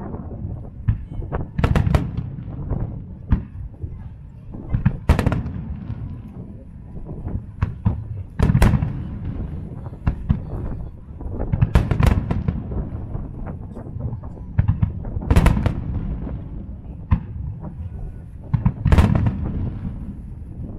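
Aerial firework shells bursting in a sustained barrage: sharp bangs every second or so over a continuous low rumble, with the loudest reports coming about every three to four seconds.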